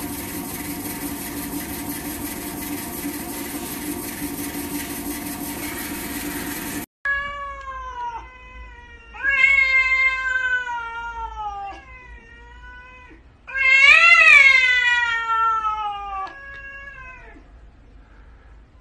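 For the first seven seconds a robot vacuum runs with a steady whir and hum, then stops abruptly. After that, a domestic cat yowls in about five long, drawn-out calls that slide down in pitch, the loudest in the second half.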